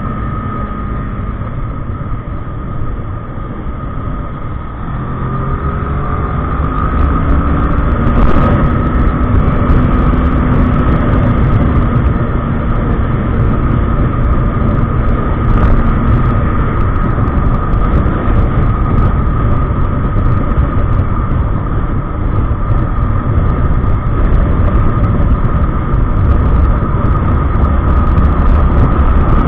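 Kawasaki ER-6n parallel-twin motorcycle engine on the move, quieter at first, then revving up and getting louder from about five seconds in before running steadily at speed.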